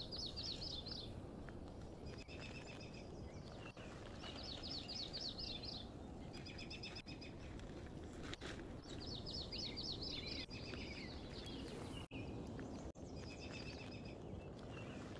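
Small songbirds singing short, fast trilled phrases, repeated every second or two over a faint steady background hiss.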